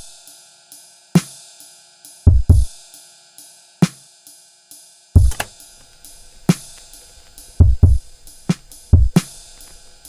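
Intro music: a sparse drum-kit beat of kick and snare hits with steady hi-hat ticks over a faint held chord.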